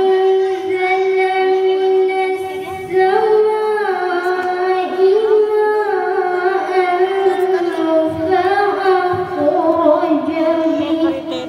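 A female reciter chanting the Qur'an in melodic recitation, holding long notes that waver and turn in pitch. The pitch steps up into a new phrase about three seconds in.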